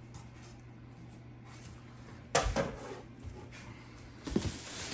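Handling noises from unpacked furniture parts: one sharp knock about halfway, then a few smaller bumps and rustling near the end, over a low steady hum.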